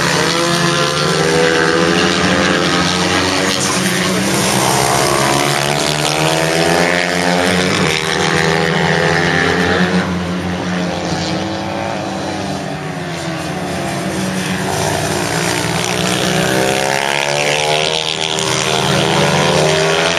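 Supermoto racing motorcycles at speed, engines revving and changing gear so the pitch rises and falls again and again, several bikes overlapping. A steady low drone runs underneath.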